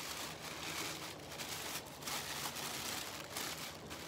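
White wrapping rustling and crinkling in a series of short, irregular bursts as it is unfolded by hand from a small wallet.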